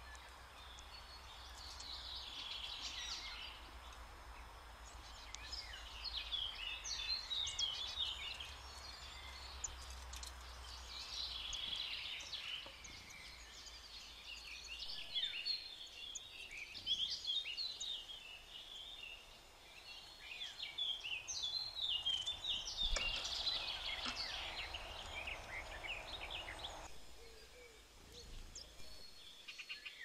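Wild songbirds singing, with bursts of twittering song phrases coming every few seconds, over a steady background hiss that stops abruptly near the end.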